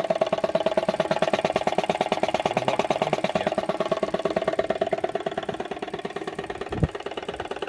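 Vintage Motivair piston air compressor running, driven by a 1 hp electric motor, with a rapid, even pulse of piston strokes over a steady hum. A single low thump comes near the end, after which it runs a little quieter.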